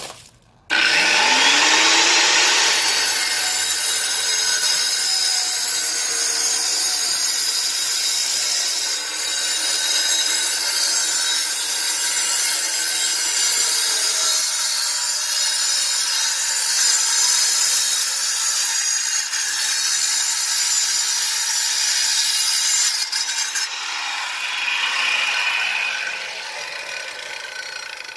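Angle grinder with a diamond blade starting with a rising whine, then cutting steadily through a solid concrete cap block with a loud gritty grinding noise. Near the end it comes out of the cut and spins down.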